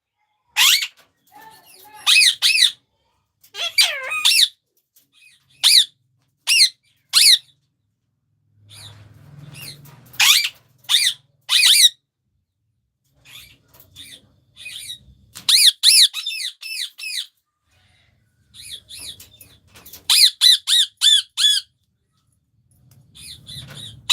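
Pet parrots screeching: short, harsh calls that come singly or in quick runs of four to six, with pauses of a second or two between runs.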